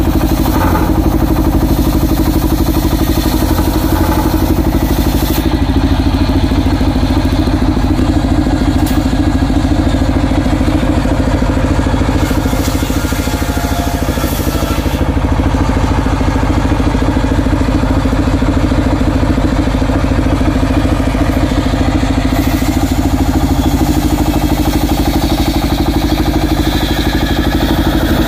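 Large circular saw blade on an engine-driven homemade sawbench ripping lengthwise through an acacia log, over the steady running of the engine that drives it.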